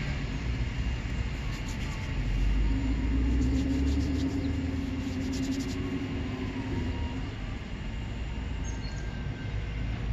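Low rumble of a passing vehicle, swelling for a few seconds, with faint crunchy chewing clicks over it.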